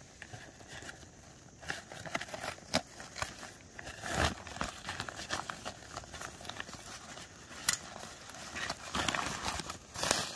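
Irregular rustling of a nylon drawstring stuff sack and small clicks as a compact camping gas stove is worked out of it by hand.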